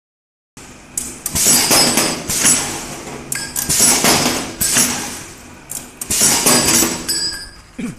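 Automatic stainless-steel tube cutting machine running its cycle: the cutting disc slices through the stainless tube in a series of shrill metallic bursts, roughly one every second or so, with metallic clicks and clinks from the clamp and feed between cuts.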